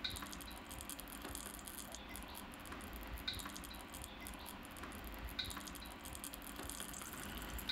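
Quiet room tone with a few faint, scattered small clicks, one every second or two.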